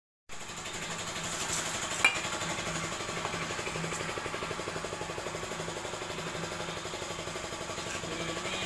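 A machine running steadily with a fast, even mechanical rhythm, and a single sharp click about two seconds in.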